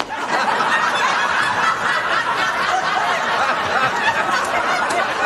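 Studio audience laughing, loud and steady, with the host laughing along.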